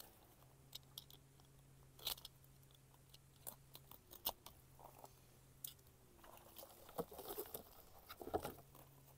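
Faint, scattered crinkling and crackling of packaging as bare-root rose seedlings are handled and unwrapped, busier in the last few seconds, over a faint low hum.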